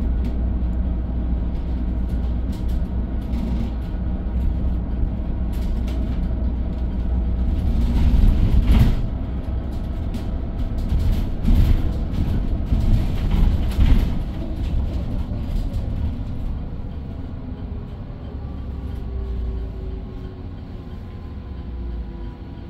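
Inside a moving bus: steady low rumble of the drive and road, with louder rattly stretches about eight seconds in and again between about eleven and fourteen seconds. It grows quieter toward the end, with a faint, slowly falling whine.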